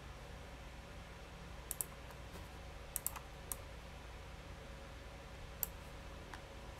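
A few clicks of a computer mouse, first two quick double clicks and then single clicks, over a low steady hum.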